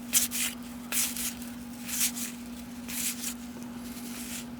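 1990 Topps cardboard baseball cards being slid off one another one at a time as a pack is flipped through, giving a series of short, papery swishes at irregular intervals. A steady low hum runs underneath.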